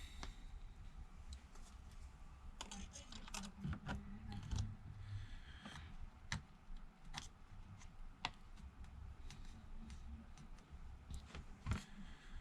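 Faint, irregular light clicks and taps as an iPad LCD panel is handled and its flex cable is pressed onto the board connector.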